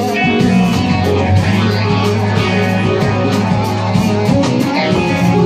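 Live rock band playing loudly: electric guitars over a held bass note, with a drum kit keeping a steady beat on drums and cymbals.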